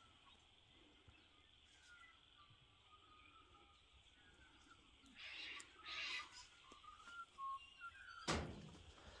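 Faint, scattered chirps of small birds settling into trees to roost, with two short harsh bursts about five to six seconds in. A single sharp thump comes near the end.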